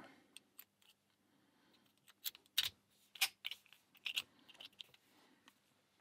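Small padlock handled with its key: near silence, then from about two seconds in a scatter of light, sharp clicks and taps, about half a dozen, as the key and shackle are worked and the lock is set down on a workbench.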